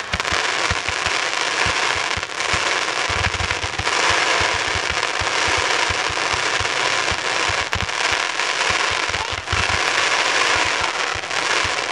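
Consumer (1.4G) ground fountain firework spraying sparks: a steady, loud hissing rush with many irregular low pops and some crackle.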